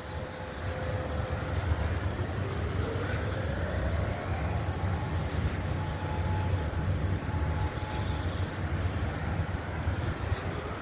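Distant outdoor warning siren sounding its test: a faint tone slowly rising in pitch from a couple of seconds in, starting to rise again near the end, over a steady low background rumble. The uploader takes it for an electronic EOW siren.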